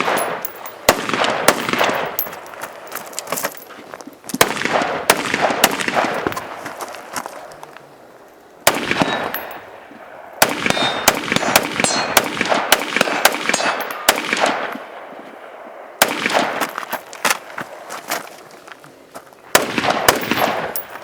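Rifle gunfire in several strings of quick shots with short pauses between them, each shot echoing, with metallic clangs and pings mixed in.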